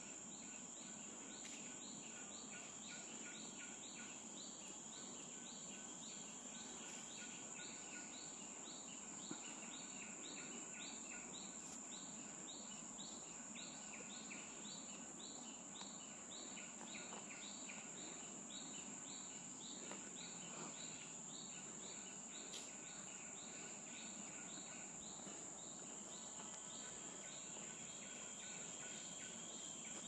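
Insects (crickets or cicadas) droning with a steady high-pitched tone, overlaid by a rapid train of repeated chirps that fades out about two-thirds of the way through.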